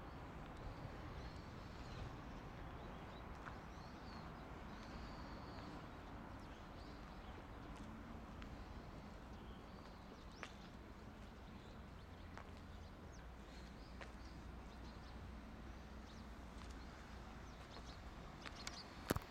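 Quiet outdoor ambience on an open railway platform: a low steady background rumble with a few faint, scattered bird chirps. A single sharp click near the end.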